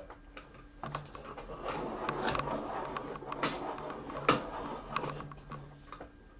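Wooden coloured pencils clicking and clattering against one another as they are sorted through to pick one out: a scatter of sharp clicks, busiest from about a second in until near the end.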